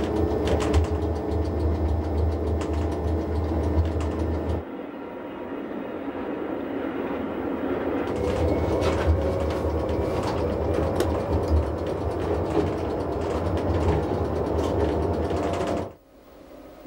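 Rhaetian Railway electric train running along the Bernina line, heard from the front: a steady rumble of wheels on rails with repeated clicks from the track. The low rumble is heavier for the first four and a half seconds, then drops sharply about sixteen seconds in.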